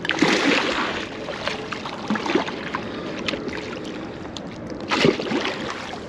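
River water splashing and sloshing around a large sturgeon in the water, with a sharper splash about five seconds in.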